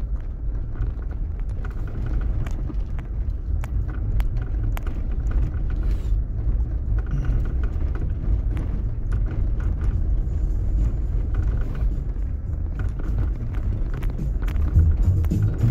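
Vehicle driving on a gravel road, heard from inside the cab: a steady low rumble of tyres and engine, with scattered sharp ticks of gravel.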